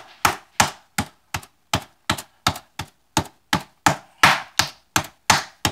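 Smooth face of a metal meat mallet striking a chicken breast wrapped in plastic wrap on a plastic cutting board, flattening it into a cutlet: a steady run of blows about three a second.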